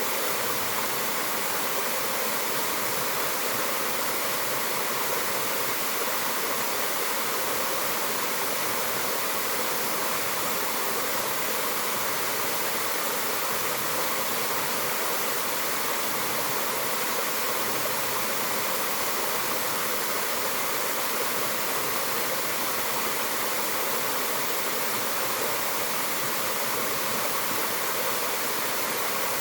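Mountain waterfall rushing, a steady, even roar of falling water.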